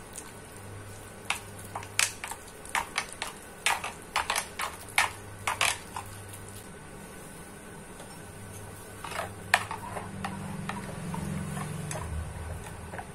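Metal spoon beating a gram-flour batter in a glass bowl, with quick clinks of the spoon against the glass and soft squishing of the batter. Near the end a steadier sound comes in as water is poured from a steel tumbler into the batter.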